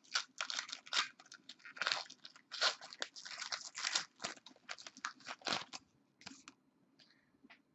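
Trading cards and their pack wrapper being handled: a quick string of crinkles and rustles that stops about six and a half seconds in.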